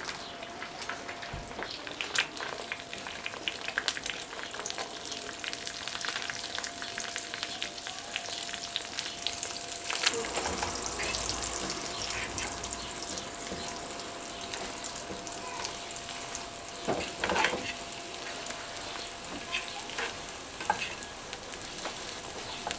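Eggs sizzling in melted sheep-tail fat in a frying pan while a metal spoon stirs and scrapes them against the pan, with small clicks throughout and a couple of louder scrapes, about ten seconds in and again near seventeen seconds.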